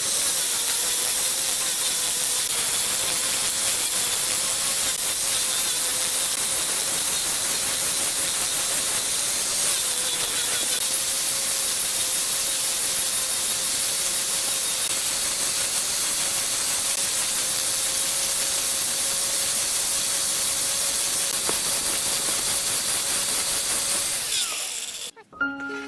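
Electric power tool running steadily with a loud hiss and a steady motor whine, shutting off near the end.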